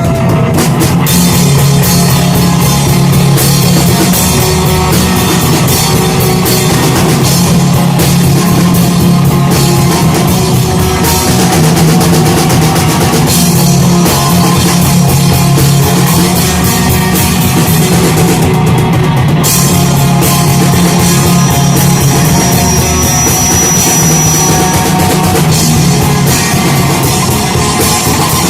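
Shoegaze band playing live: loud, continuous rock with a full drum kit pounding under a wall of sound.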